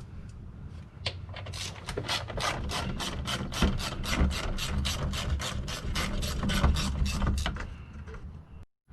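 Quarter-inch ratchet with an 8mm socket clicking steadily, about four to five clicks a second, as it backs out a bolt holding the plastic underbody shield. The clicking starts about a second and a half in and stops near the end.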